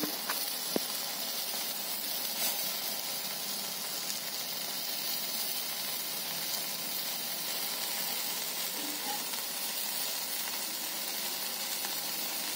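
Ghee sizzling steadily under a vegetable paratha on a hot iron tawa, with a couple of faint clicks of a metal spatula in the first second.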